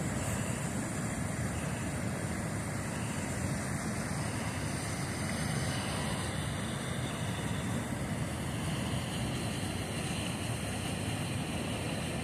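Fast, churning river water rushing steadily: a constant low rumble with no breaks.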